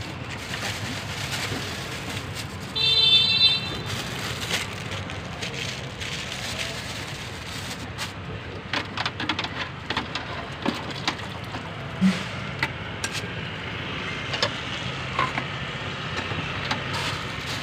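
Clinks and taps of metal utensils and a wire strainer against a large aluminium soup pot, scattered through the second half over a steady background noise. A short, loud, high-pitched beep sounds about three seconds in.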